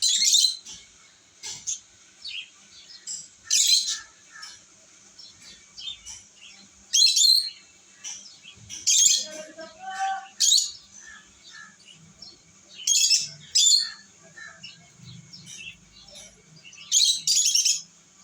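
Pet lovebirds calling: loud, shrill chirps in short bursts every few seconds, some doubled, with softer twittering in between.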